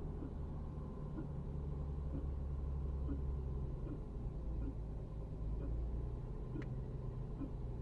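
BMW E90 325i's N53 straight-six engine running steadily, with a faint light tick recurring a little more than once a second. This is the car whose rattle in the 1000–2000 rpm range is being recorded.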